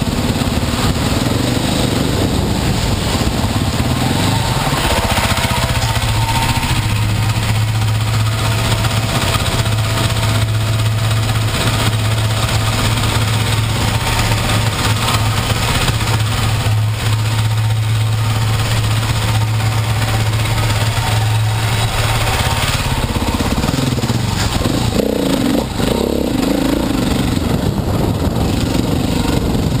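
Dirt bike engine running at a steady speed for most of the stretch, then dropping and rising in pitch with throttle changes near the end, over a steady hiss.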